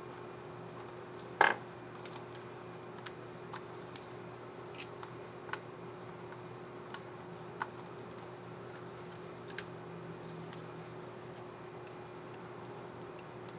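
Small plastic clicks and taps from handling a laptop keycap and its scissor mechanism on the keyboard, with one much louder click about a second and a half in, over a steady low hum.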